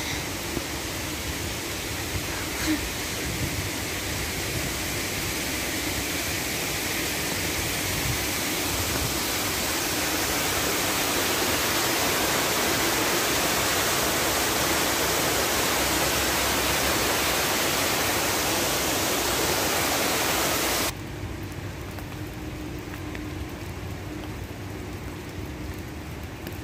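Steady rushing water noise, swelling gradually, then dropping suddenly to a quieter hiss about two-thirds of the way through.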